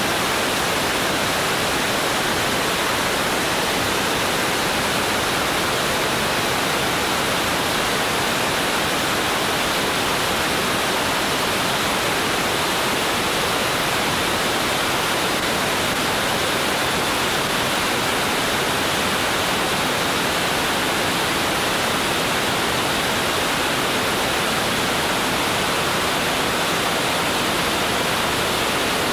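Steady wind noise over the microphone of an action camera mounted outside under the wing of a Cessna 205 in flight: an even, unbroken rush of airflow with no distinct engine tone.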